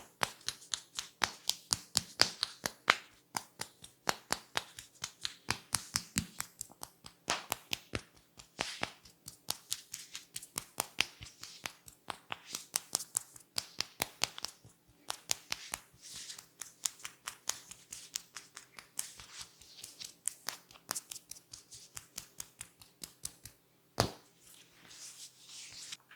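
Rapid percussive strokes of an Indian head massage: quick slaps and taps on the head and shoulders, several a second in a steady rhythm. Near the end comes one louder, sharper crack.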